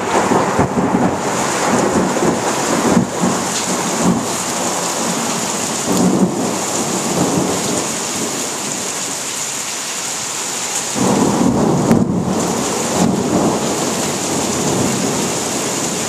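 Thunderstorm: heavy rain hissing steadily while thunder rumbles, swelling about six seconds in and again from about eleven seconds.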